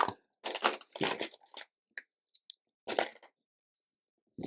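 Loose plastic LEGO bricks clattering and crunching as hands rummage through a pile, in a handful of short, irregular bursts.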